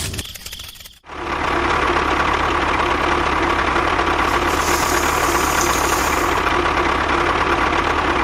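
An engine or motor running steadily at an even speed with a constant hum. It cuts in abruptly about a second in.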